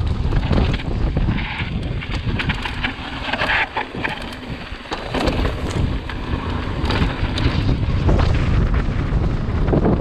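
Wind rushing over the camera microphone as a mountain bike rolls fast down a dirt singletrack, with tyres on loose dirt and scattered clicks and rattles from the bike over the rough ground.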